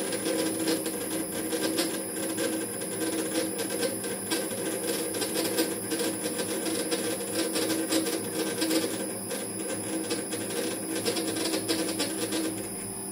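Metal lathe running under power feed while a threading tool takes a 2.5 thou pass cutting a 5 tpi Acme thread in a bronze nut: a steady gear whine with fast, uneven ticking from the cut.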